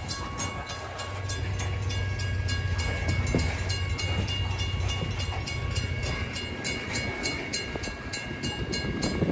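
Railroad crossing bell ringing rapidly and evenly, about three to four strokes a second, as a train approaches. A low hum swells under it between about one and six seconds in.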